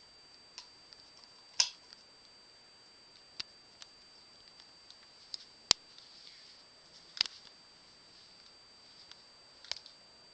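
Irregular sharp clicks and ticks of handling the homemade night-vision camera and goggle rig, one every second or so, loudest about a second and a half in and around the middle. A faint steady high-pitched electronic whine runs underneath.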